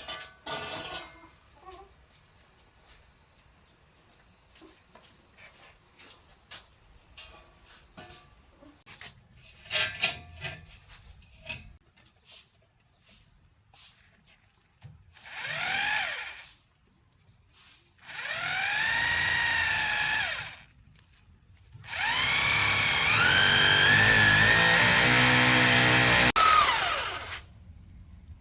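A small motor run in three bursts, its pitch rising and falling each time; the last burst is the longest and loudest. Before the bursts come scattered light clicks and knocks.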